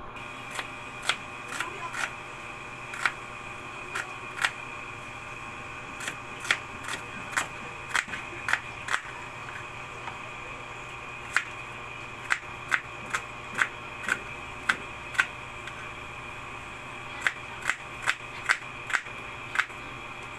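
Chef's knife slicing red onions, the blade knocking sharply on a plastic cutting board at an uneven pace of about one to two strokes a second, with a couple of short pauses in between.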